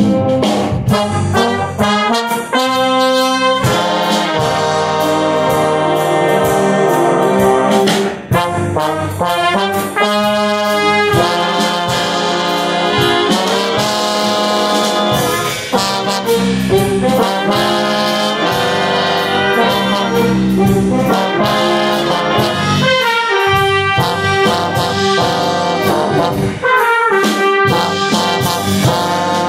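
Brass band playing a tune, heard from right beside a trombone, which stands out close to the microphone.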